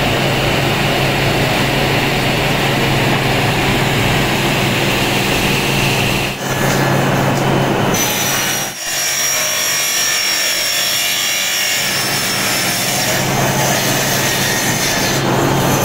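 Plywood factory machinery running, loud and steady with a constant low hum under a wash of noise. The sound changes abruptly about six and a half and nine seconds in, and a thin high whine joins it for several seconds from about eight seconds in.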